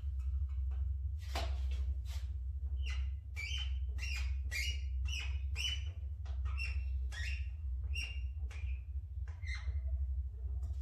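A couple of light knocks, then about a dozen short, irregular squeaks of rubber and plastic rubbing as a windshield's edge is pressed into the rubber track of a motorcycle fairing. A steady low hum runs underneath.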